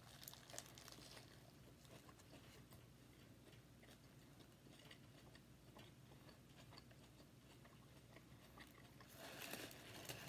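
Faint chewing and wet mouth clicks as a mouthful of burger is eaten, with a soft paper-wrapper rustle about nine seconds in.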